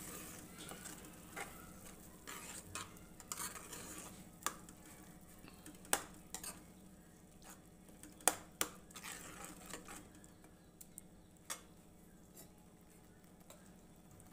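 A metal spoon stirring radish and cream in a steel kadhai, scraping the pan, with irregular clinks against its sides that grow sparser toward the end.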